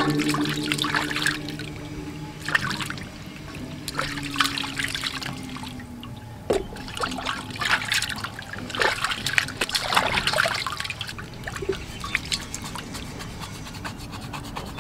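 Water splashing and trickling in a stainless steel bowl as raw pig ears are washed by hand, with irregular splashes as the ears are lifted and the water runs off them.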